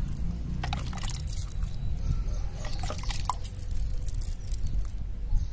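Water sprinkled onto loose potting soil in a plastic bucket, a scattered patter of drips and small splashes over a low rumble.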